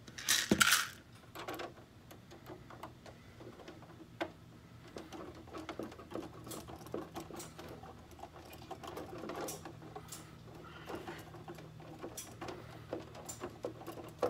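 Small screws being turned by hand with a precision driver into the plastic RC car body and splitter: a run of light irregular clicks and ticks. A louder clatter comes about half a second in.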